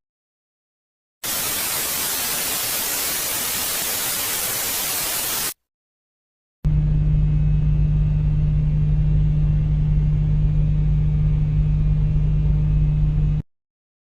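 Two separate space-sound recordings in turn: first about four seconds of even, full-range hiss, then, after a second of silence, about seven seconds of a louder low drone carrying one strong steady hum. Both cut off abruptly.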